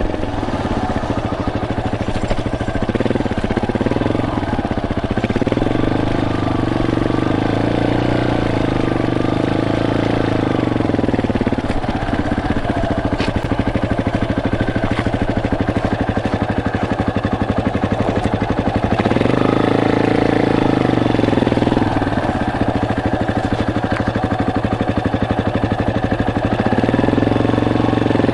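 Yamaha Serow's single-cylinder motorcycle engine running on the move, its pitch climbing and falling back several times as the throttle is opened and eased.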